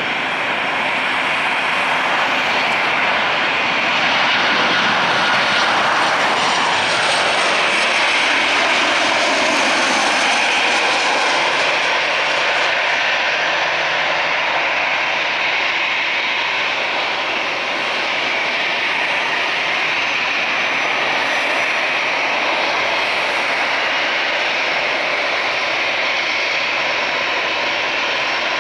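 Boeing 737-800 jet engines (CFM56-7B turbofans) on final approach and landing: a steady, loud jet noise with a faint whine that glides down in pitch about seven seconds in.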